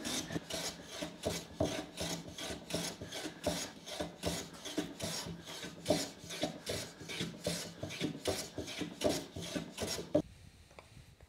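Qiang Sheng No. 5 bench plane taking quick, repeated strokes across hardwood (maple and walnut), each stroke the hiss of a shaving being sliced off. The strokes stop about a second before the end.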